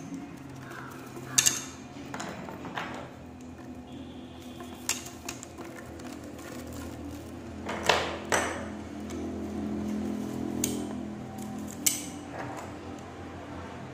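Bangles clinking against each other as they are handled and slid onto a stacked tube: several sharp clinks, about five in all, with softer rattling between them.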